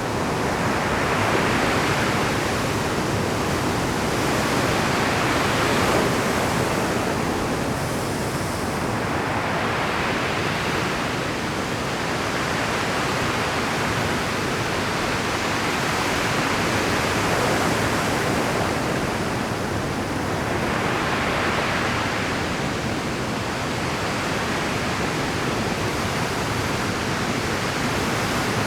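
Pacific surf breaking steadily on a rocky shore, a continuous roar of churning water with the rush swelling and easing every several seconds as waves come in at high tide.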